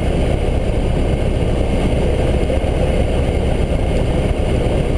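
Steady engine and wind noise inside a Cessna 172 cabin. The engine is throttled back to idle for a power-off stall, and the level stays even throughout.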